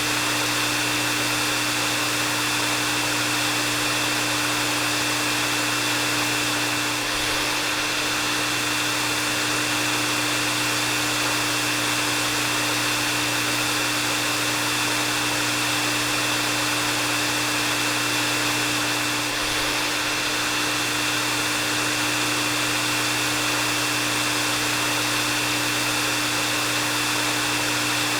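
Hair dryer running steadily on one setting: a continuous rush of blown air with a steady motor whine held at a fixed pitch.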